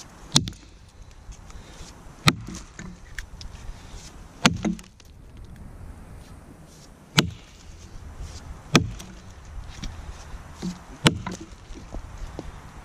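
Council Tool boys axe chopping into a log from on top of it while bucking it: six sharp strikes of the bit into the wood, roughly two seconds apart, with lighter knocks between them.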